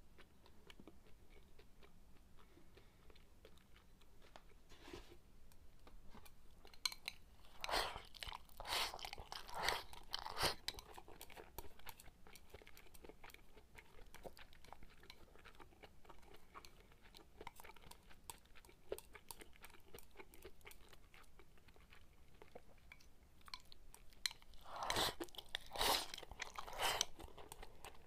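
Close-up chewing of sukiyaki and rice, soft wet mouth sounds with many small clicks. There are two louder noisy stretches, about a third of the way in and near the end, as food is pushed from the bowl into the mouth.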